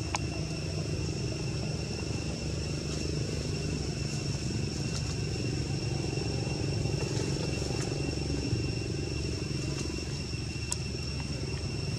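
Steady background noise: a constant low rumble with a continuous high-pitched whine over it, and a few faint clicks.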